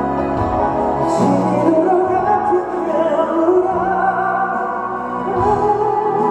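Live pop ballad played by a band, with a slow, wavering melody line held over steady sustained low notes.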